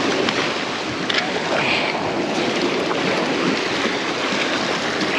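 Choppy sea washing and splashing against granite jetty rocks, a steady rush of surf.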